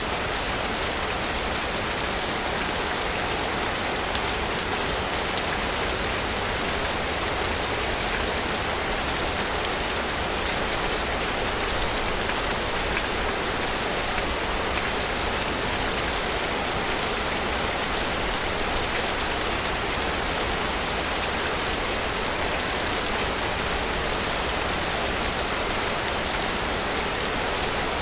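Steady rain falling, a dense even hiss with fine patter of drops, unchanging throughout.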